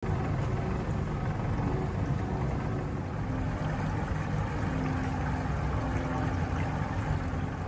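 Twin Yamaha 200 outboard motors running steadily at low speed, giving a low, even engine drone.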